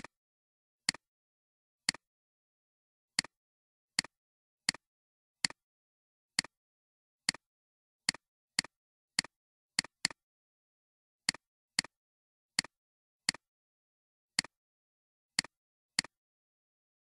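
Computer mouse button clicking about twenty times at an irregular pace, roughly once a second, each click a quick press-and-release pair of ticks with dead silence between.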